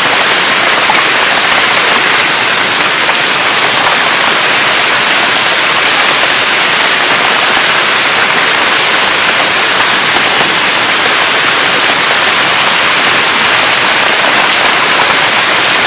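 Steady rain falling, a loud even hiss that does not let up.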